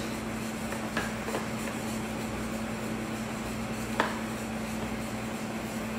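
A utensil stirring a soft butter mixture in a stainless steel bowl, with two sharp clinks against the metal about one second and four seconds in, over a steady low hum.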